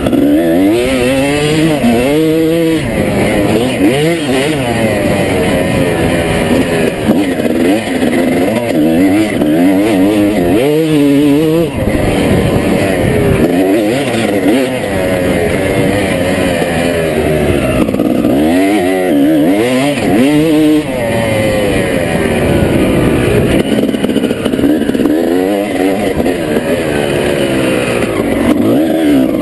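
Motocross dirt bike engine ridden hard, heard from the bike itself: its pitch climbs and drops again and again as the rider accelerates, shifts and rolls off through the corners.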